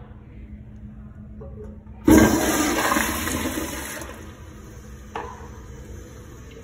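Kohler Wellworth pressure-assisted (Pressure Lite) toilet flushing: a sudden loud rush of water about two seconds in that eases off over a couple of seconds into a steadier, quieter hiss. There is one sharp knock about three seconds after the flush starts.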